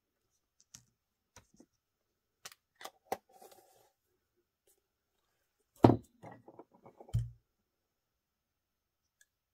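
Hands handling small craft items on a tabletop: a few light clicks and taps in the first few seconds, then a loud thump about six seconds in, a quick run of knocks, and a second thump a second later as a small glass jar is picked up.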